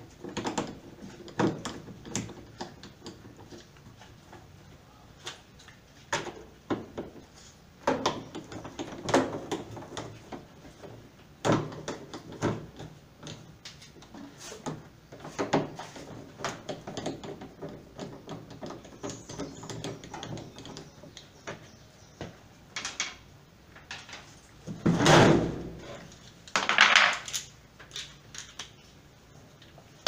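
Hand screwdriver and the plastic cabinet parts of an LG top-loading washing machine being handled during disassembly: scattered clicks and knocks, with two louder clatters of about a second each near the end.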